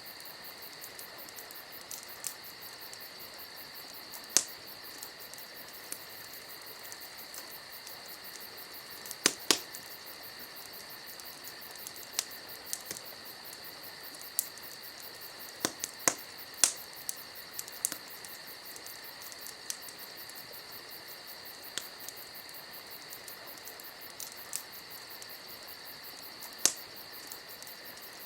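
Campfire wood crackling with scattered sharp pops at irregular intervals, over a steady, high chorus of crickets.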